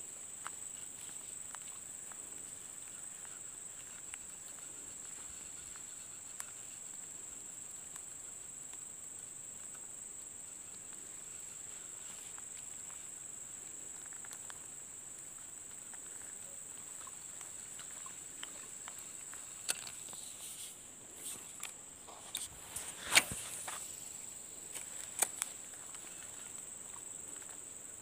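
Insects droning steadily in one high-pitched band, with a few sharp clicks about three-quarters of the way through.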